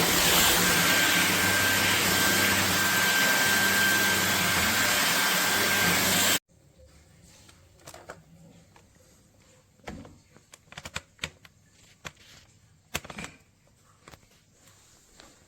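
LEVOIT cordless stick vacuum running steadily with a high whine, switched off abruptly about six seconds in. After that come a few faint clicks and knocks.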